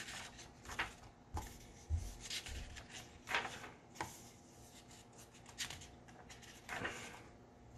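Paper pages of a paperback book being turned and smoothed by hand: several short, soft rustles and rubs.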